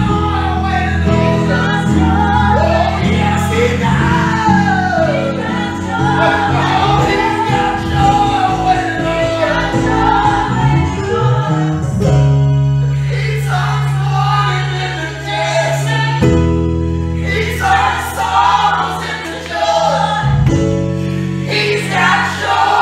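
Live gospel worship music: a group of voices singing over long held chords that change every few seconds.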